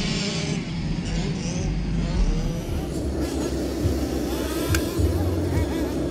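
Radio-controlled model excavator's electric motors whirring as it works on a dirt pile, with a low hum that starts and stops in short spells in the second half. A single sharp click sounds just before five seconds in.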